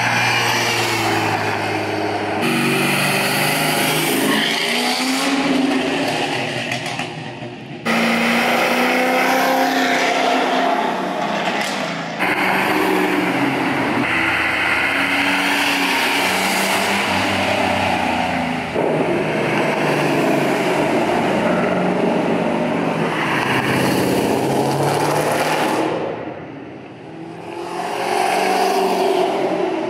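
Performance cars accelerating away one after another, engines revving and exhausts rising in pitch, the sound switching abruptly from one car to the next every few seconds.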